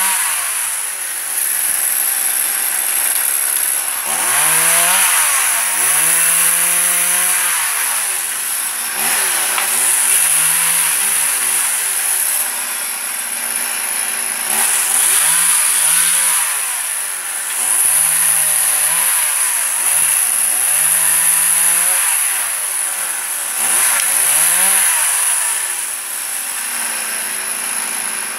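Two-stroke chainsaw cutting walnut limbs: it is revved to full throttle and held for a second or two in each cut, then drops back toward idle, about eight times.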